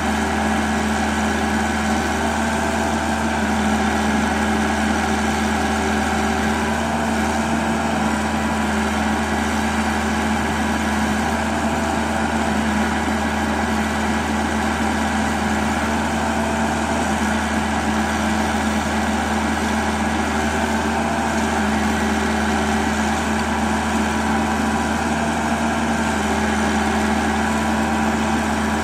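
StoneTermite compact drill rig running steadily with its Drillcom drifter drilling into a stone block: a loud, unbroken mix of a steady machine hum and dense hammering-and-hiss noise, with no pause or change.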